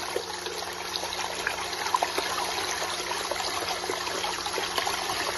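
Steady trickling and splashing of water circulated by a SHYSKY DC60G-24120A-1 brushless DC water pump running submerged at full speed, with a faint steady hum underneath.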